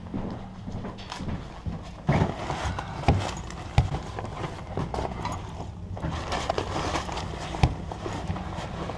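Someone rummaging through clothes and bags: rustling fabric with irregular knocks and thumps from handling, over a steady low hum.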